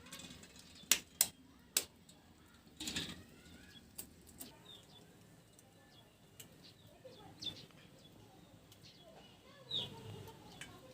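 Birds chirping faintly, with three sharp taps about a second in and a few softer knocks and rustles afterwards.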